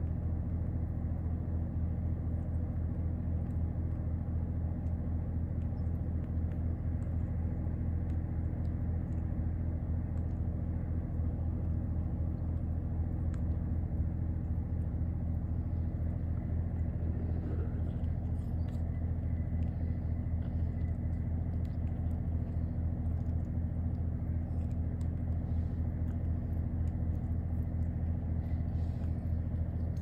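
Steady low hum throughout. Over it are faint, scattered clicks of an Amazon parrot cracking and nibbling seeds with its beak, coming more often in the second half.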